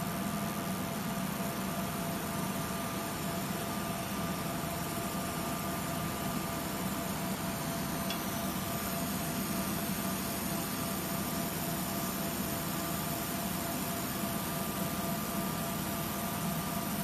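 UV laser marking machine running while it marks glass: a steady whirring hiss with a low hum and two faint, steady high tones.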